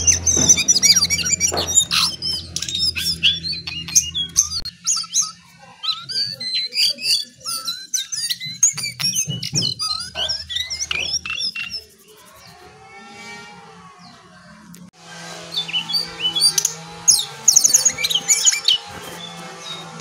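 Caged jongkangan (cingcoang coklat) singing a fast, varied string of high chirps and trills. It goes quieter for about three seconds some twelve seconds in, then sings loudly again.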